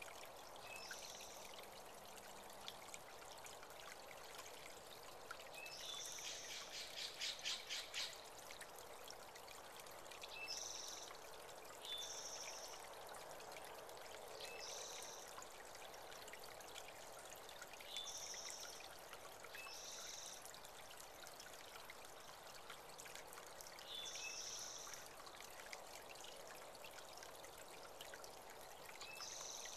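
Small creek trickling steadily over rocks, with a songbird giving short high calls every few seconds and a quick trill about seven seconds in.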